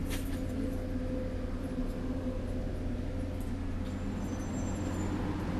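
A motor running steadily: a low, even drone with a faint constant tone above it.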